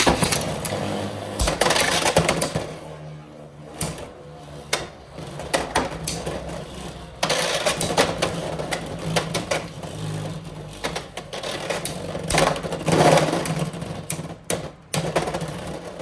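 Beyblade X spinning tops whirring and clattering against each other and the plastic stadium walls, with a steady whir and repeated sharp clacks of collisions throughout.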